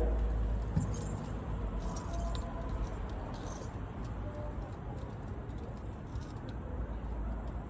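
Mercedes M112 3.2-litre V6 running at a cold-start idle through a muffler-deleted stock exhaust, a steady low rumble that settles down in level after the start. A few faint high rattles come in the first few seconds.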